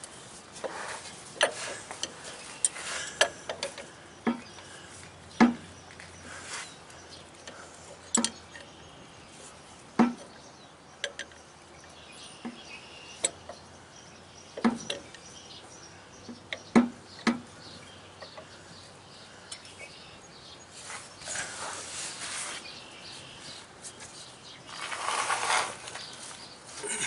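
Steel pipe wrench clinking and knocking against a hydraulic cylinder's end cap as it is repositioned and turned to unscrew the tight cap: sharp, irregular metal clicks every second or two, with a couple of longer scrapes near the end.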